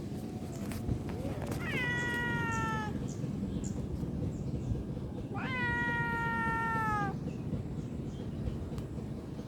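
Domestic cat meowing twice, two drawn-out calls a few seconds apart, each rising quickly and then falling slowly in pitch.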